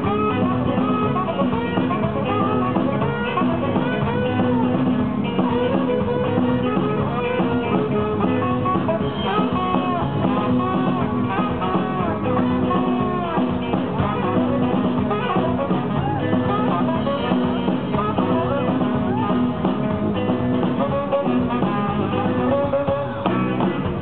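Live band playing Malian desert blues-rock: guitar lines over bass and drums, with a saxophone.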